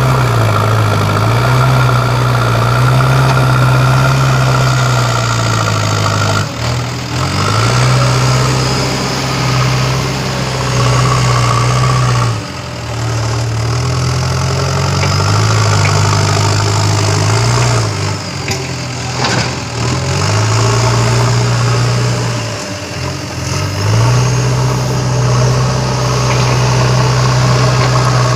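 JCB backhoe loader's diesel engine running as the machine pushes and lifts earth, its low drone stepping up and down in pitch with the throttle and briefly dropping away a few times.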